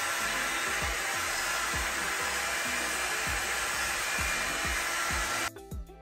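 Hairitage Up In The Air volumizing hot-air brush blowing with a steady rush of air, over background music with a steady beat. The dryer sound cuts off abruptly about half a second before the end, leaving only the music.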